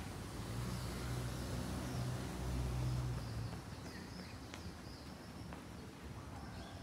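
Outdoor ambience on a walk: a low rumble swells over the first three seconds or so and then fades. Faint bird chirps and a few footstep clicks sound over it.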